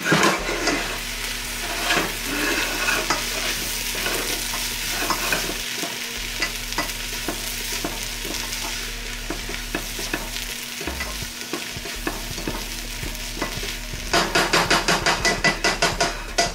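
Diced onion and green bell pepper sizzling as they sauté in a pot, stirred with a silicone spatula that scrapes and clicks against the pot. Near the end the stirring turns into a fast, even run of knocks, about five a second.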